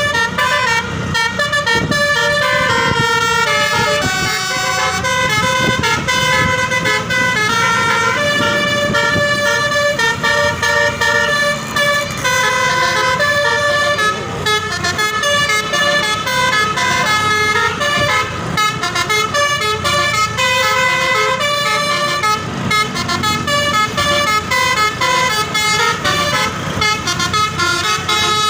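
Indonesian bus "telolet" horn playing a melody, its notes stepping up and down in quick succession without a break.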